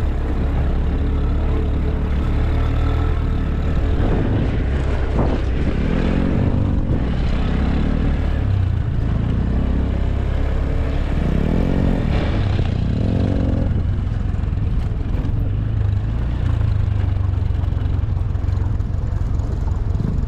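A motorbike engine runs under a steady low rumble, its pitch rising and falling several times as it speeds up and slows down.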